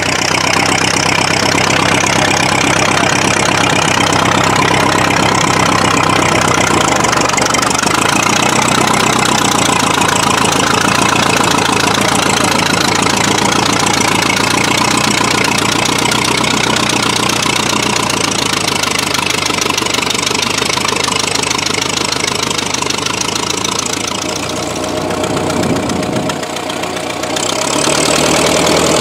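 A 1927 Ford Model T's four-cylinder engine running steadily while the homemade tractor pulls a walking plow through the soil. The sound eases briefly near the end, then grows louder again as the tractor comes close.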